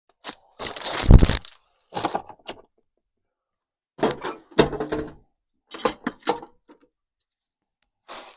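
Metal parts and tools being handled on a workbench: a series of clinks and clanks in short separate clusters, the loudest about a second in.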